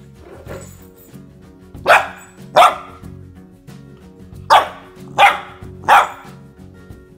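Golden retriever puppy barking five times: two barks close together, a pause, then three more in quick succession, over background music.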